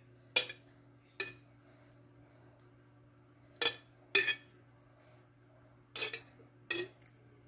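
A metal spoon clinking against a sauce container as tomato sauce is scooped out and spread over a casserole, about six sharp clinks at irregular intervals. A faint steady hum runs underneath.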